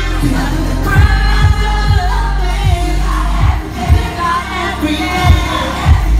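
A male singer sings live into a microphone over a pop backing track with a deep bass line and a kick drum thumping about twice a second.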